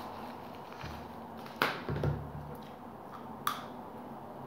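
Handling of a cigarette pack and lighter: a few sharp clicks and small rustles, the loudest click about a second and a half in and another near three and a half seconds.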